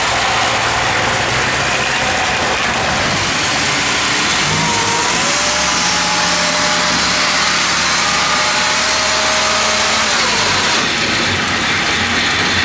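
Engines of small tracked rice-hauling machines running loud in the field, with a steadier engine note held from about five seconds in that drops away around ten seconds.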